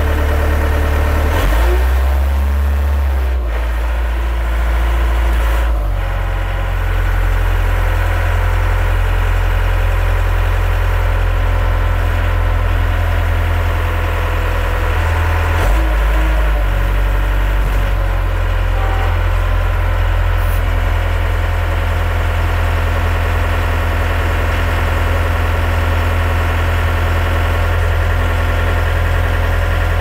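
Everun ERS45 skid steer loader's four-cylinder Yanmar 4TNV94 diesel engine running steadily. Its note shifts a few times, about two seconds in, near six seconds and around sixteen seconds, while the loader arm is raised and lowered.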